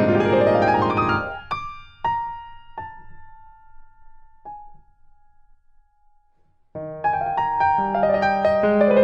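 Background piano music: a rising run of notes, then a few single high notes that ring out and fade, a brief pause, and the music starts again with fuller chords near the end.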